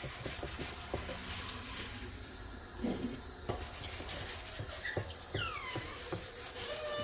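Light taps and clicks of hands working a pie crust in a glass pie dish, with a fork pricking it near the end, over a steady background hiss. A brief high squeal that falls in pitch comes about five and a half seconds in.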